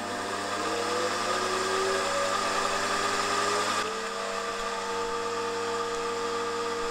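Milling machine spindle motor starting up, its whine rising in pitch over the first couple of seconds and then running steadily, with the end mill turning above the aluminium block but not yet cutting.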